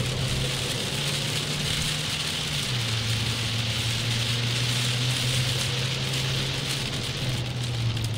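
Inside a car driving in heavy rain: a steady hiss of rain and spray on the windscreen and body, with tyres on a wet track, over a steady engine drone that drops in pitch about three seconds in.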